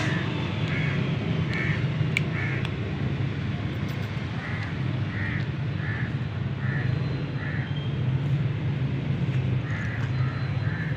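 Runs of short animal calls, three to six at a time, a little under a second apart, over a steady low hum.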